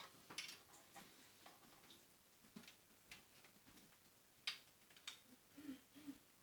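Faint, irregular clicks and taps, the sharpest about four and a half seconds in, with a few soft low knocks near the end.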